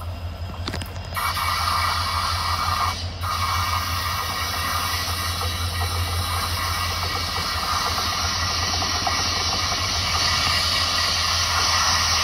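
Diesel locomotive running with a steady low hum. About a second in, a loud steady hiss starts over it and breaks off briefly about three seconds in.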